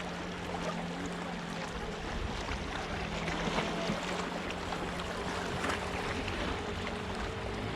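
Sea water washing and splashing against the rocks, full of small crackles, over a steady low hum that stops near the end.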